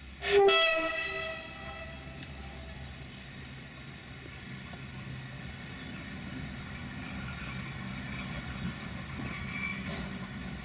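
A locomotive's horn gives one short toot that dies away over about a second, followed by the steady low rumble of a train, rising a little near the end.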